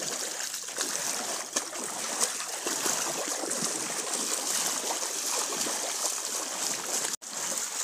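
Feet wading through ankle-deep floodwater, a steady sloshing and splashing with each step. The sound drops out for an instant near the end.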